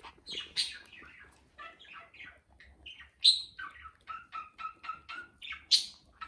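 A dog whining in a quick series of short, high whimpers, about three a second, with a couple of louder, sharper cries among them.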